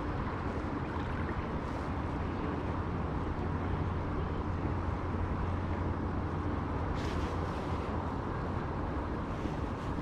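Steady rushing outdoor noise of wind on the microphone and moving water, heavy at the low end, with a few faint brief scratches about seven seconds in and near the end.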